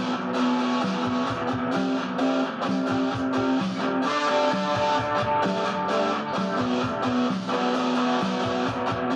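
Electric guitar playing a repeating riff over a drum machine beat.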